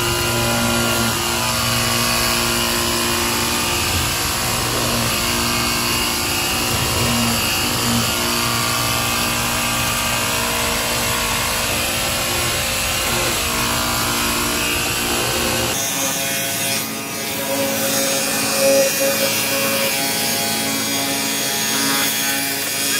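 A 36-volt cordless battery pressure washer running steadily, its pump motor humming under the hiss of the water jet spraying through the fins of a window air conditioner's condenser coil. About two-thirds of the way through, the sound changes suddenly and the low hum drops away.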